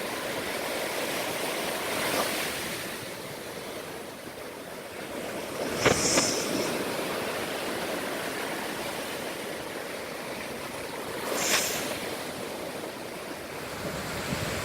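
Ocean surf washing onto a beach: a steady rushing of water, swelling louder as waves break, most sharply about midway and again near the end.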